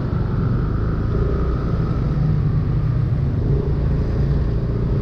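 A Yamaha motorcycle's engine running at low speed as the bike rolls slowly, a steady low rumble.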